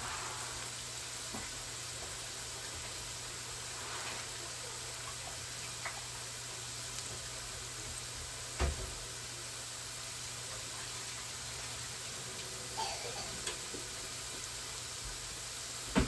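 Minced garlic sizzling steadily in hot cooking oil in a pan as it sautés toward golden brown, with a few light clicks and scrapes of a utensil and one knock about halfway through.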